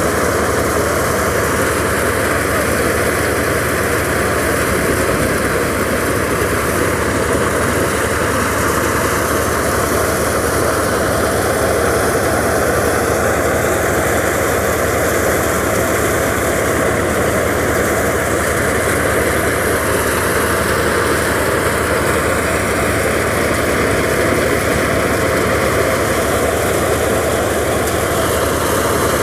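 Tractor-driven thresher running steadily as chickpea plants are fed into it: the tractor engine and the thresher's spinning drum make a continuous, even mechanical din with no pauses.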